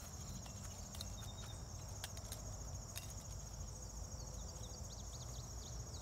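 Insects in a summer meadow trilling steadily in a high, finely pulsing pitch, over a faint low rumble, with a few short falling chirps in the second half.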